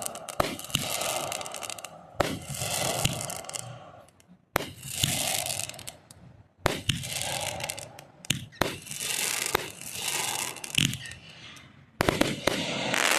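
Aerial fireworks shells bursting one after another, about every two seconds, each sharp bang followed by a fading crackle.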